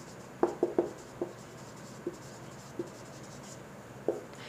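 Marker pen writing on a whiteboard: short scratchy strokes and taps, a quick cluster about half a second in and a few single strokes spread through the rest.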